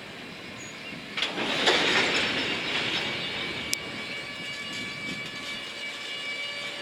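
A train running past on the rails: a rush of wheel-on-rail noise sets in about a second in, then several high steady wheel-squeal tones ring on above it. A single sharp click cuts through in the middle.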